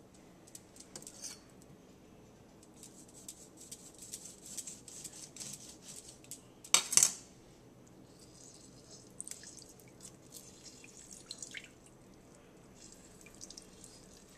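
Limes being squeezed by hand over a glass bowl, without a juicer: juice dripping, with small wet squelches and clicks. One louder, sharp knock about seven seconds in.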